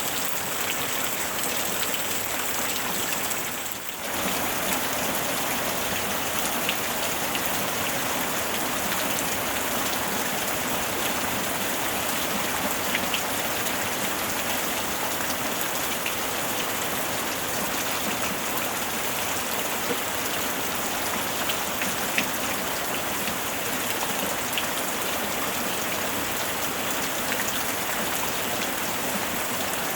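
Steady rain falling on a surface, an even hiss with scattered individual drops ticking through it. The sound dips briefly about four seconds in.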